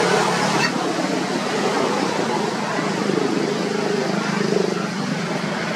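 Steady rushing outdoor background noise, like distant traffic or wind on the microphone, with faint indistinct voices mixed in.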